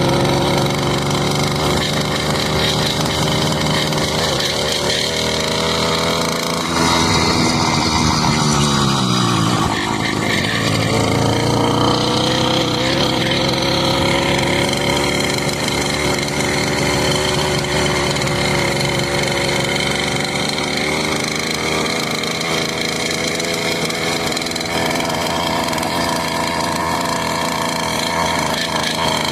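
Motorcycle engine running at high revs. About seven seconds in it gets louder and the engine speed sags over a few seconds, then climbs back up, and it holds a steady high speed for the rest.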